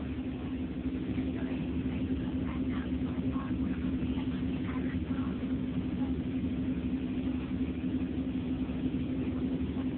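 Pumpboat engine running steadily, a constant droning hum with a low rumble underneath.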